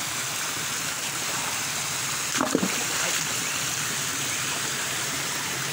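Steady rushing of a small creek's water over its bed, with one short falling voice about two and a half seconds in.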